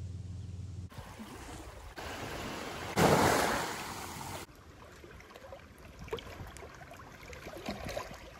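Sea water washing against a rocky, pebbly shore in a few short cuts: the loudest is a wave surging over a rock about three seconds in and draining back, followed by quieter lapping and trickling at the water's edge. A low steady hum sounds in the first second.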